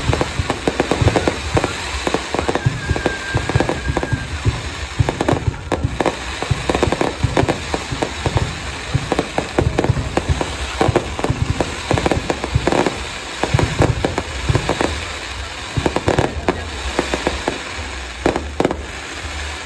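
Fireworks display: a dense, continuous barrage of bangs and crackles over a low rumble, with a brief whistling tone about three seconds in.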